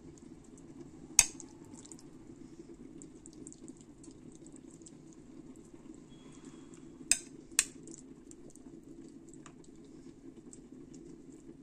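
A metal spoon scooping a soft vegetable filling and clinking against the dishes as it is spooned into fried aubergine halves in a pan. Three sharp clinks, one about a second in and two close together about seven seconds in, with soft scraping and wet ticks between, over a steady low hum.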